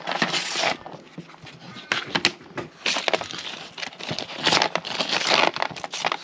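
Small thin plastic bag of tablets crinkling as it is handled, in several bursts, with a few light clicks from a clear plastic box.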